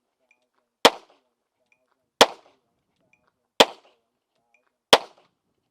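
Handgun shots fired one at a time at a steady rhythmic pace, four shots about a second and a half apart, a timed cadence drill. Faint short high beeps keep the same pace between the shots.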